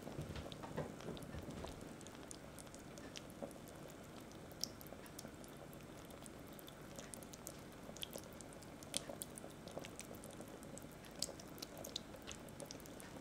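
Chicken and chestnut stew simmering gently in an enamelled cast-iron pot: a faint, steady low bubbling with scattered small pops and crackles.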